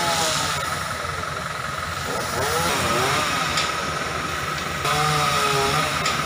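Truck-mounted aerial lift's engine running steadily, a continuous hum with a steady high whine over it.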